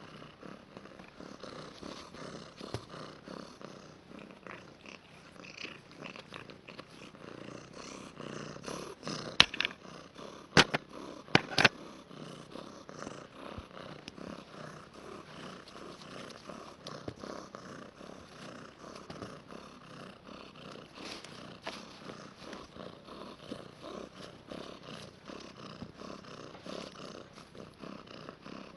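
Domestic cat purring steadily, close up. A few sharp clicks about ten seconds in are the loudest sounds.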